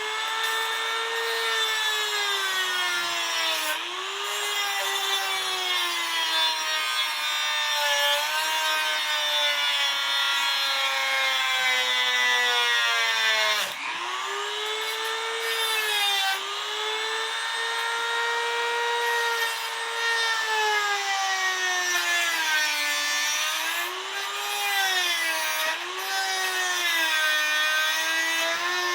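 Small high-speed grinding tool grinding down the tips of a clip-removal tool to make them thin. Its motor whine sags in pitch each time the tool is pressed into the work and rises again, with one sharp dip about halfway through.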